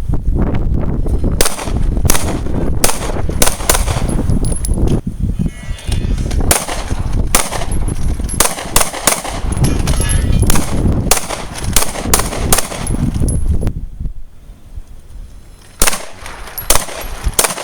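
Several pistols firing on a shooting range: many sharp shots in an irregular, overlapping stream from more than one shooter, with a brief lull of about two seconds near the end before the shots resume.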